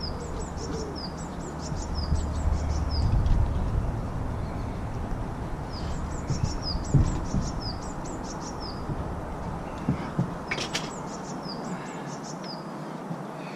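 A songbird singing three phrases of quick, short, falling notes, over a steady outdoor hiss and a low rumble that drops away near the end.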